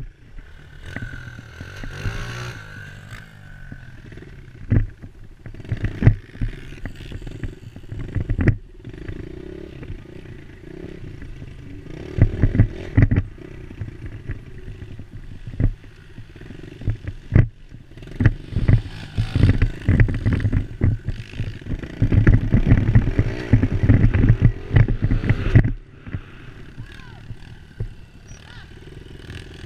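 Dirt bike engine revving up and down as it is ridden over a rough dirt trail, heard from a helmet-mounted camera, with frequent knocks and rattles from the bumps.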